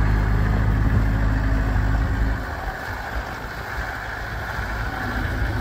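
Kubota M7040 tractor's four-cylinder diesel engine idling steadily. It grows quieter a little over two seconds in.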